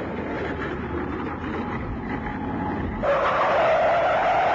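Armoured military vehicle's engine rumbling as it drives. About three seconds in, a louder rushing jet aircraft engine noise cuts in suddenly.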